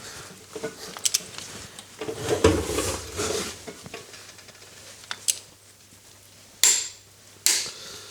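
Hand torque wrench set to 210 newton metres tightening a bolt: metal clicks and clinks as the wrench is worked, then a few sharp clicks near the end.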